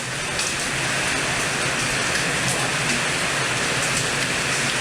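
Heavy rain pouring steadily in a summer storm, an even rushing hiss with faint scattered ticks of drops.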